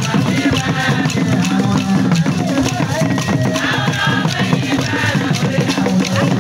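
Vodu ceremonial music: drums and percussion playing a dense, even rhythm, with voices singing over them in the middle.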